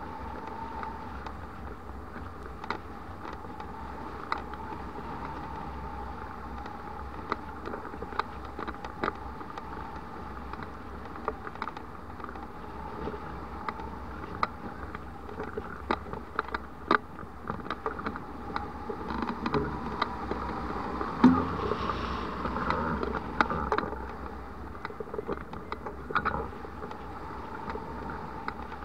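Wind rushing past a hang glider in flight, heard as steady wind noise on the glider-mounted camera's microphone, with scattered sharp ticks. It grows louder and gustier for a few seconds past the middle, with one heavier knock there.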